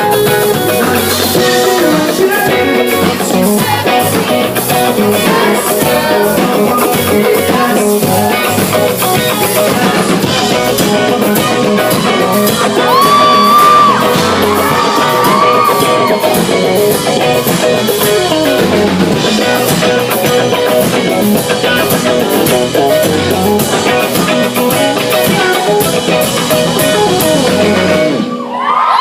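Live pop-rock band playing a song with lead vocals, electric guitars, bass and drum kit, heard through the hall's PA. The song ends about a second before the end.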